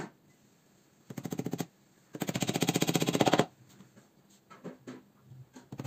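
A power screwdriver driving screws into a particleboard cabinet panel: two bursts of fast, even rattling clicks, a short one about a second in and a longer one lasting over a second, then a few light knocks.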